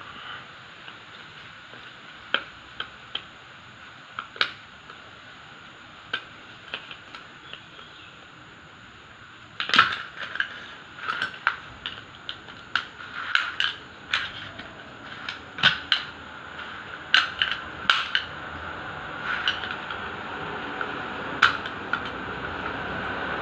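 Sharp metallic clicks and clinks of snap-ring pliers and a screwdriver against the steel clutch drum of a Perodua Viva Elite automatic transmission as its retaining snap ring and piston parts are worked loose. The clicks are scattered at first and come in a quick cluster from about ten seconds in. A steady rumble swells near the end.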